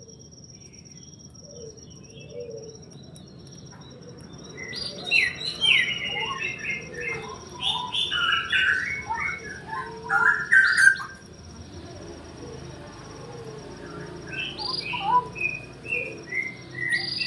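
Small birds chirping in quick runs of short notes, busiest from about five to eleven seconds in and again near the end, over a faint steady high-pitched tone.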